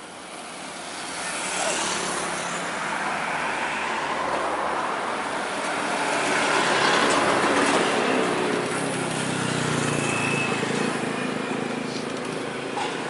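Scania double-decker coach driving past close by: the engine and tyre noise builds over the first two seconds, is loudest about seven seconds in as the bus goes by, and stays high afterwards.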